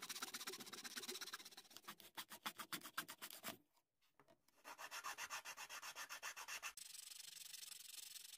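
Coping saw cutting a stained basswood strip in quick, short strokes, then, after a brief gap about four seconds in, a needle file rasping back and forth along the freshly sawn edge.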